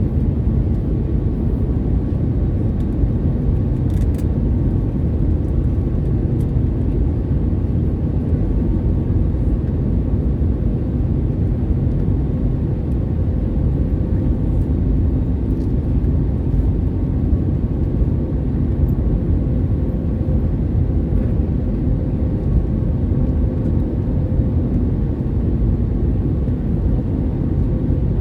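Steady cabin noise inside an Airbus A320neo with CFM LEAP-1A engines on final approach: an even low rush of airflow and engine hum, with faint steady engine tones.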